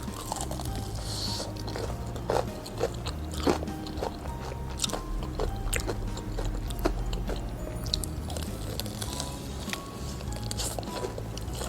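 Close-miked biting and chewing of crispy fried chicken: scattered sharp crunches of the fried crust as it is bitten and gnawed off the bone. Soft background music runs underneath.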